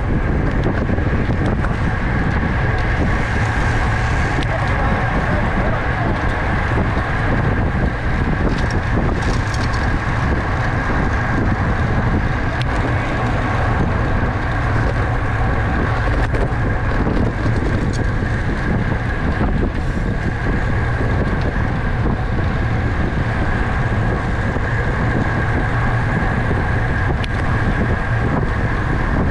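Steady wind rush on the microphone of a camera riding along on a racing bicycle at race speed, over continuous tyre and drivetrain noise, with a thin steady whine running through it.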